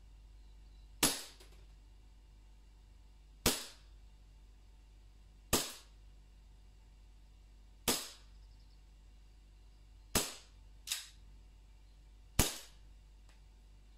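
Inokatsu Sig Sauer P226 CO2 gas-blowback airsoft pistol firing single shots on a full CO2 cartridge, one roughly every two seconds. There are six sharp cracks, each with a short ringing tail, and a fainter crack follows just after the fifth.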